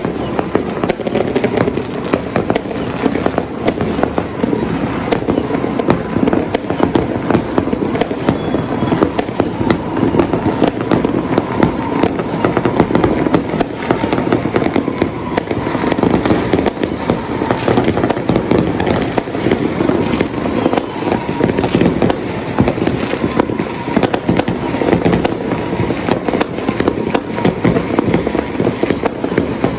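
Chinese New Year fireworks and firecrackers going off in a dense, continuous barrage of cracks and bangs.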